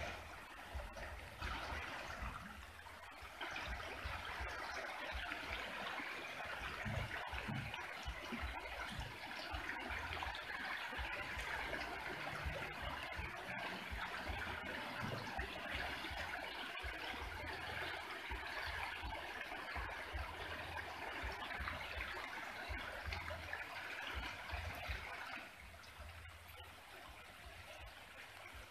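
Swollen, muddy Mekong River current rushing and swirling around the hull and railings of a sunken tourist boat, a steady wash of moving water that eases off a few seconds before the end.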